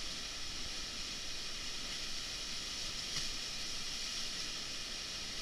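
Steady rushing of white water pouring over a drop in an artificial white-water channel, a continuous hiss-like roar from the churning foam.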